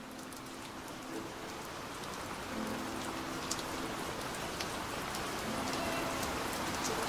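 Steady rain with scattered sharp drop ticks, fading in and growing gradually louder. Faint low held tones come and go underneath.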